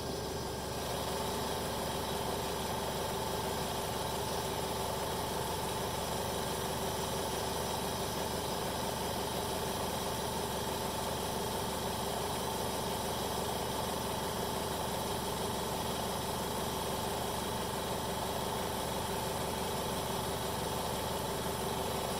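BRP-1 oilless recovery pump and its drive motor running steadily under test, pumping against a closed valve as the pressure builds toward 150 psi. A steady higher tone joins the running sound about a second in.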